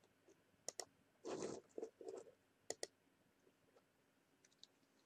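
Quiet clicking at a computer: two quick pairs of sharp clicks, about a second in and again near three seconds, with a short rustling noise between them.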